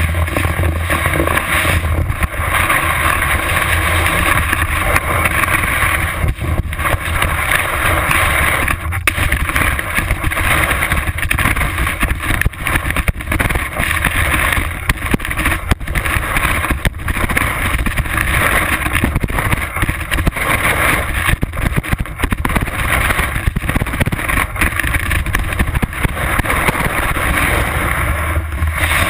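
Skis sliding and scraping over packed snow, picked up by a camera mounted on the ski, with wind rushing over the microphone in a steady rumble and irregular knocks as the skis ride over bumps.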